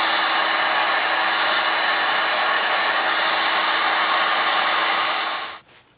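Hot-air blower running steadily to shrink heat-shrink tubing over freshly soldered switch connections, with a faint motor whine under the rush of air. It switches off about five and a half seconds in.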